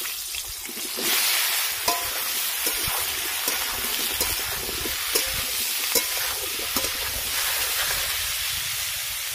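Chunks of half-boiled raw jackfruit sizzling in hot mustard oil in a kadai. The sizzle swells about a second in as more pieces go in, with a spatula clicking and scraping against the pan as they are stirred.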